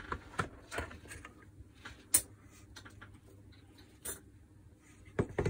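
Plastic housing of a Makita DDF453 cordless drill being handled and split open: scattered small clicks and knocks, with sharper clicks about two seconds in and about four seconds in, and a short cluster of knocks near the end.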